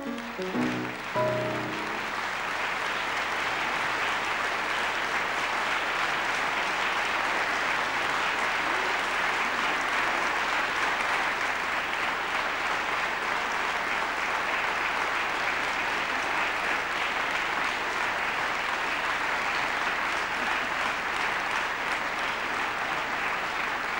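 The last piano notes of a song end about a second and a half in, then an audience applauds steadily.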